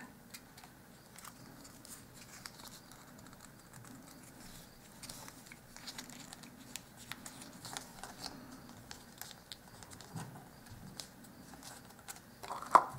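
Faint rustling and small scattered clicks of stiff card being pressed and folded by hand as a glued tab is tucked in and held in place.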